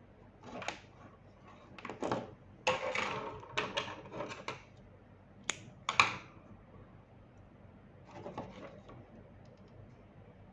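Handling noise from hands working yarn, thin wire and scissors: scattered rustles and knocks, with two sharp clicks about five and a half and six seconds in, the second the loudest.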